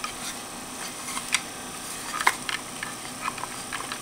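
Light, irregular clicks and taps of a grid-tie inverter's metal case and end panel being handled and fitted together, the loudest about a second and two seconds in.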